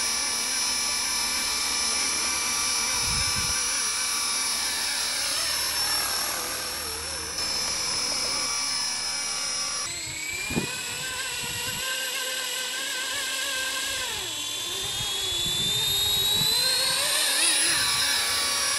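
Blade SR electric RC helicopter: the motor's high whine and the rotor blades whirring as it hovers. After a cut it sits on the ground with the rotor spinning, and the whine rises steadily in pitch as the rotor speeds up. A brief knock comes about ten and a half seconds in.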